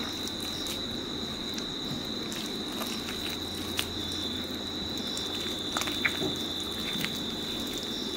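Hand mixing and kneading a mashed lentil, biscuit-crumb and egg kabab mixture, giving faint soft squelches and a few light clicks, over a steady high-pitched whine and a low hum.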